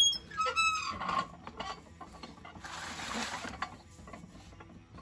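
Homemade steel bead breaker being worked by its long lever to push a tire bead off the rim. A sharp metallic clank rings out at the start, then there are squeaks from the lever and the tire, and a scraping rush a few seconds in.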